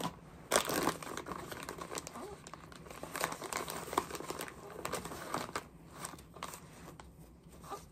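Plastic crinkling and rustling from a newborn's disposable diaper and changing things being handled during a diaper change, with irregular sharp crackles, the loudest about half a second in.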